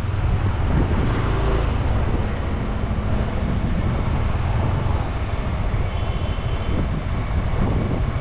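Motorbike engine running steadily while riding, under heavy low wind rumble on the microphone.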